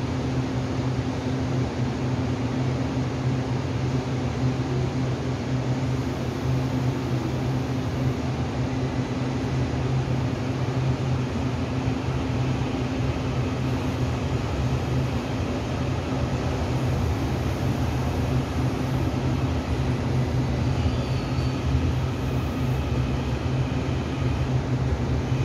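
Taiwan Railway electric multiple-unit train pulling out of an underground station platform: a steady low hum and rumble at an even level, echoing in the enclosed station.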